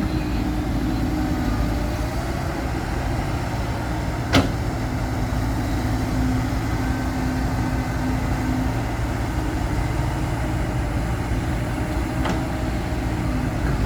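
Heavy diesel engines of an excavator and a dump truck running steadily at a work site. There is one sharp knock about four seconds in and a fainter one near the end.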